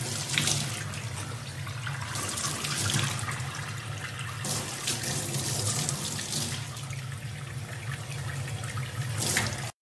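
Tap water running into a stainless steel sink, the stream splashing over a young chimpanzee's hands as it rubs them under the flow, with a steady low hum underneath.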